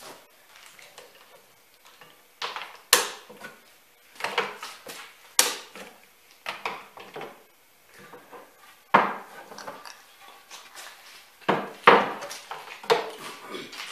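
Scattered knocks and clatters as a wooden rail is turned over and repositioned on the workbench, with a few sharp clinks, about one every second or two and the loudest around the middle and near the end.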